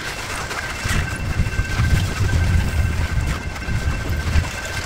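Loaded coal hopper cars of a freight train rolling slowly past: a steady low rumble of the wheels on the rails with scattered clicks, and a faint steady high tone over it.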